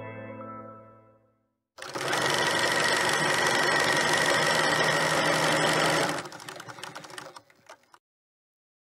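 Music fading out, then after a short pause the rapid clatter of an old film projector running, which thins into slower, scattered ticks and stops.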